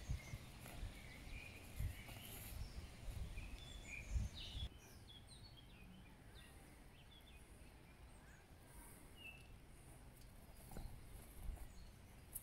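Small birds chirping faintly in woodland, with a few dull low thumps scattered through.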